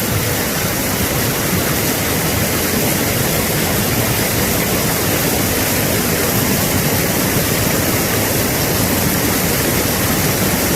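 Steady rushing of water pouring down a small waterfall about 2 m high.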